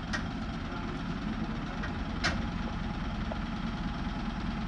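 Steady low rumble of a running engine or machine, with two sharp metallic clinks, one right at the start and a louder one about two seconds in.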